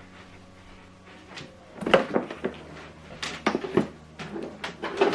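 Handling noise as cables and plugs are worked at the back of a TV: a string of short, light knocks and clicks, starting about a second and a half in and coming irregularly, several a second near the middle and end.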